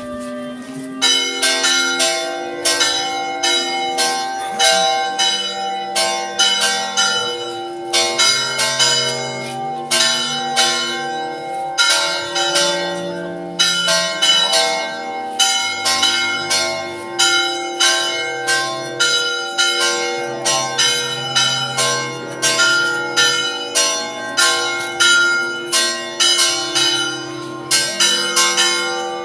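Church bells ringing a rapid peal, beginning about a second in: about two strikes a second on bells of several pitches, each note ringing on into the next.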